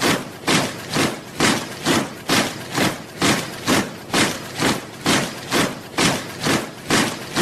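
A body of soldiers marching in step, their boots striking the ground together in a steady rhythm of about two steps a second.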